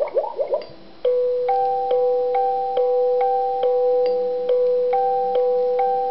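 Simple electronic melody of pure beeping tones from an alarm clock's small speaker, a new note about every half second on two alternating pitches, starting about a second in. Just before it, a brief bubbling water sound.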